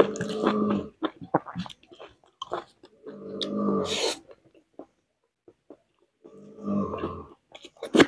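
Hand-eating of rice and vegetables: wet chewing and mouth clicks, broken three times by a short throaty vocal sound, each under a second, at the start, about three seconds in and near seven seconds.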